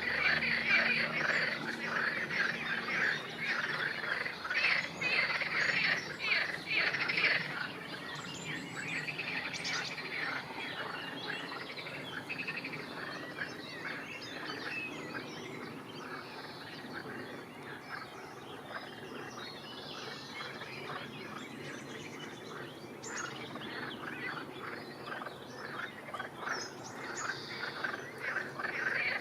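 Many birds chirping and calling in quick, overlapping notes. They are busiest in the first several seconds, thin out through the middle, and pick up again near the end.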